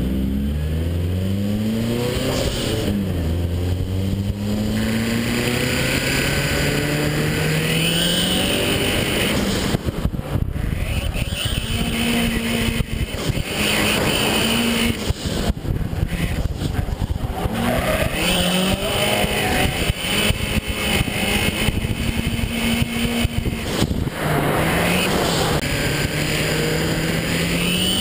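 Drift car engine revving hard, its pitch climbing and dropping again and again, with tires squealing several times through the slides, heard from inside the car.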